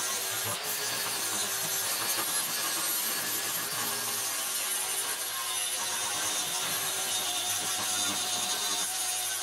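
Angle grinder with a flap disc running steadily, sanding across a drilled 1/8-inch steel plate to take off the burrs left by drilling.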